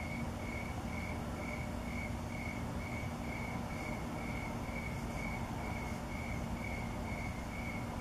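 A cricket chirping steadily at one high pitch, about two chirps a second, over a low steady rumble and hum.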